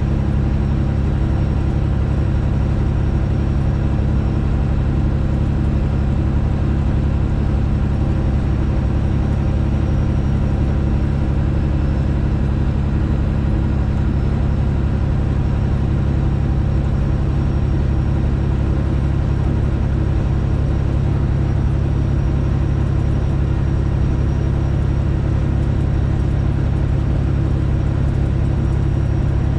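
Straight-piped Detroit Diesel engine in a Freightliner Classic XL semi truck, running steadily under way at constant engine speed with a deep, even exhaust drone and no gear changes.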